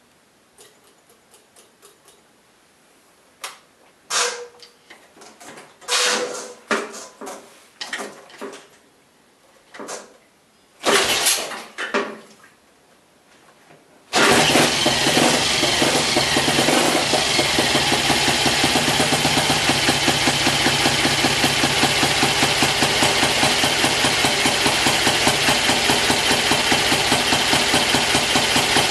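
Freshly rebuilt 1954 Triumph Tiger Cub 200 cc single-cylinder four-stroke engine being kickstarted: several strokes of the kickstart that don't catch. About fourteen seconds in it fires and settles into a steady, evenly pulsing idle.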